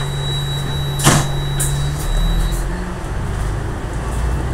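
Alexander Dennis Enviro500 double-decker bus driving along, heard from inside the lower deck: a steady engine hum with road noise. A brief sharp knock about a second in is the loudest sound, and the engine note changes about two seconds in.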